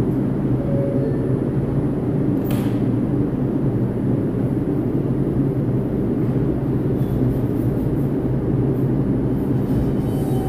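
R142 subway train standing at the platform, its onboard equipment humming steadily. A single short knock comes about two and a half seconds in.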